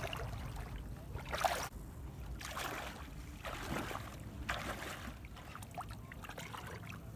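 Footsteps wading through shallow floodwater, a splash and slosh with each stride about once a second.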